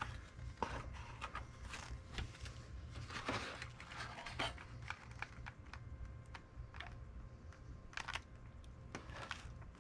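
Faint handling noise of a cardboard box and its paper insert: scattered light rustles, taps and clicks as the box and the bagged die-cast toy truck inside it are moved about.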